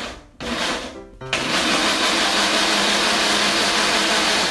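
Countertop electric blender puréeing chopped kiwifruit: two short bursts, then running steadily from about a second in.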